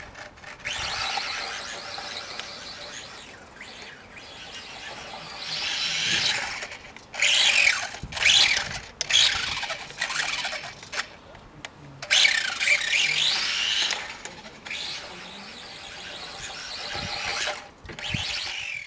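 Losi Micro Rally 1/24 RC car's 8750kv brushless motor whining as it is driven in repeated short bursts, its high pitch sweeping up and down with the throttle.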